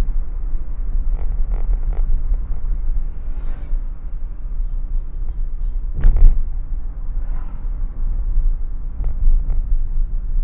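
Low, steady rumble of road and engine noise inside a moving car's cabin, picked up by a dashcam. There is one louder knock about six seconds in and a few faint ticks.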